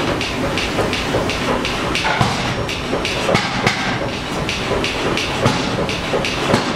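Forging hammer striking steel in a steady, even rhythm of about three blows a second, over a continuous workshop din.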